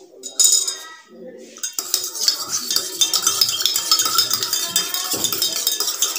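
Metal spoon stirring water in a stainless steel tumbler, clinking rapidly and continuously against its sides from about two seconds in. A single sharp clink comes near the start.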